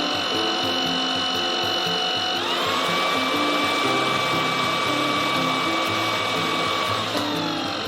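Tineco cordless stick vacuum's motor running with a steady whine; it steps up to a higher speed about two and a half seconds in, holds, then drops back to the lower speed near the end.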